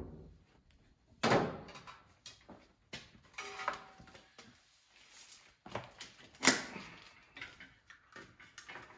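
Clicks and knocks of a trickle charger's clip-on leads being unclamped from a car battery and the charger and its cables handled. The sharpest knock comes about six and a half seconds in.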